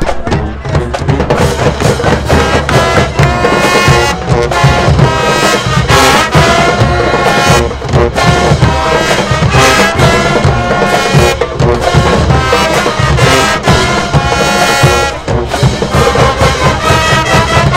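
Marching band playing a loud stand tune: sousaphones, trombones and trumpets over a steady beat of bass and snare drums.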